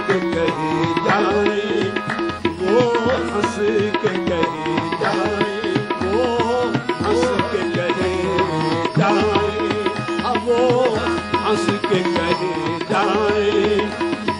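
Qawwali music without clear sung words: a steady tabla rhythm under a sustained melodic line, the kind of harmonium accompaniment that carries a qawwali between verses.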